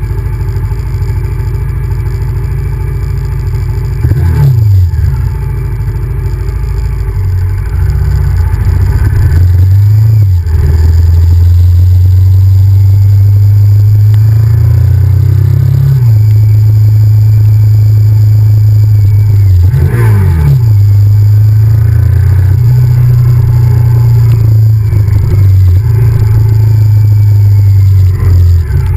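Honda VTR1000F's 90-degree V-twin engine running under way, loud and steady for long stretches. Its pitch swings quickly up and down about four seconds in and again at about twenty seconds, as if the revs change through gear shifts.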